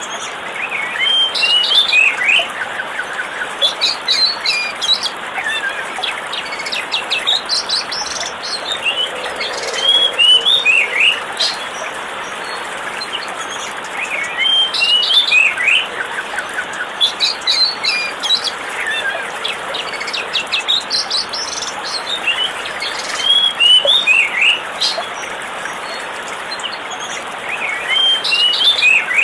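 Birds chirping and twittering in short repeated phrases every few seconds, over a steady rush of falling water.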